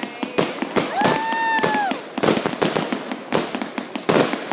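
Consumer fireworks going off in rapid, irregular cracks and pops, with a short held whistle about a second in.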